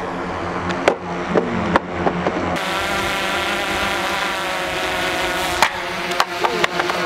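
Quadcopter drone's propellers humming steadily in flight, with a few sharp knocks near the end.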